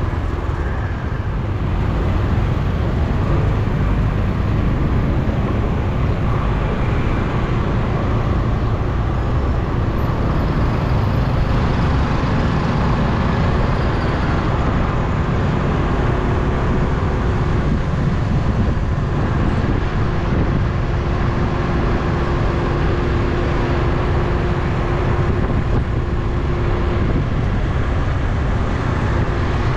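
Steady city traffic noise heard from a vehicle riding along the street: a continuous rumble of engines and tyres on the road, with a faint steady engine hum in the second half.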